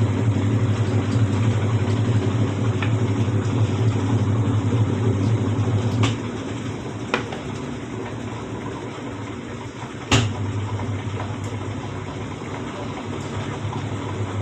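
Whirlpool White Magic Royal Plus top-loading washing machine running on spin with a new suspension rod fitted. A steady motor hum cuts out about six seconds in, a couple of clicks follow, then a sharp click about ten seconds in and the hum starts again.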